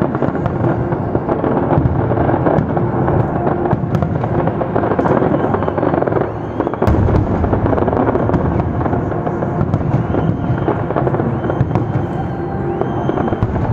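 Fireworks display: a dense, continuous crackle of bursting shells and bangs, with a brief lull about six and a half seconds in followed by a heavy low bang.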